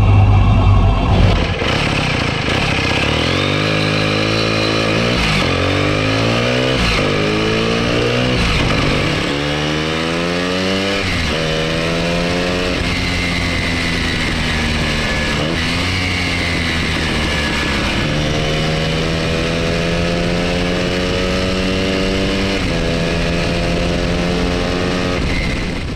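Hercules W2000's single-rotor Wankel engine under way, pulling the motorcycle up through the gears: the engine note climbs in pitch and drops back at each upshift, several times in the first ten seconds. It then eases off and settles into a steady cruising note.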